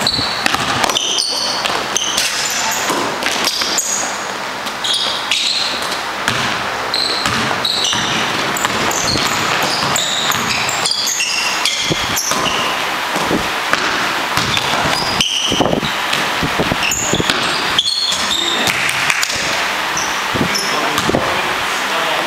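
Indoor basketball game: the ball bouncing on the court, repeated thuds, and many short high-pitched squeaks of sneakers on the gym floor. Occasional shouts from players ring out in the echoing hall.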